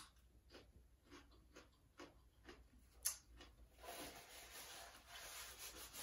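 Faint chewing with soft mouth clicks, one sharper click about three seconds in; from about four seconds in, the soft rustle of a paper napkin being handled.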